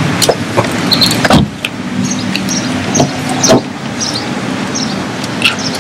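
Car engine idling steadily, with scattered light clicks and one heavy thump about a second and a half in.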